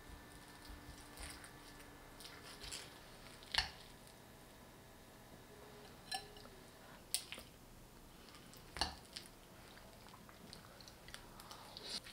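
Metal knife and fork clinking and scraping on porcelain plates, with a few sharp, briefly ringing clinks, the loudest about three and a half seconds in and others around six, seven and nine seconds. Soft chewing sounds from someone eating.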